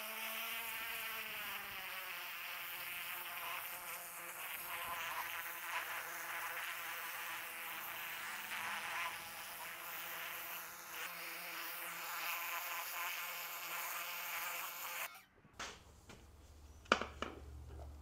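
Electric pressure washer running with a steady buzzing whine and the hiss of its water jet spraying onto a steering rack on concrete. It cuts off about 15 seconds in, followed by a few light metallic clicks of the rack parts being handled.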